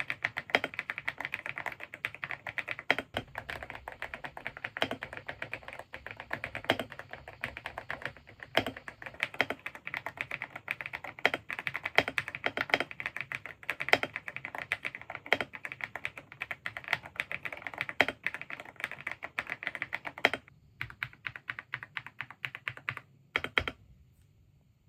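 Typing on an Akko 5098B mechanical keyboard: a fast, steady stream of keystroke clicks. About twenty seconds in it thins to a few separate keystrokes, which stop shortly before the end.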